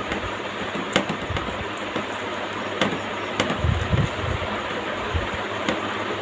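Someone eating close to the microphone: a few sharp clicks and a cluster of low soft thumps near the middle, over a steady background hiss.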